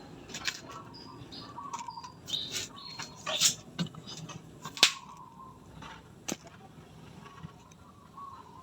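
Birds chirping, with short high whistled notes in the first few seconds, and several sharp clicks, the loudest about five seconds in.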